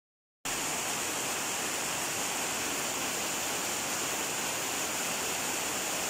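Steady rain pouring onto a concrete alley and the surrounding roofs and plants: a dense, even hiss that starts about half a second in.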